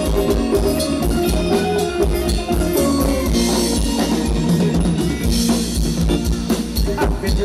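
Live Thai ramwong dance band music, loud, carried by a steady drum-kit beat of bass drum and snare.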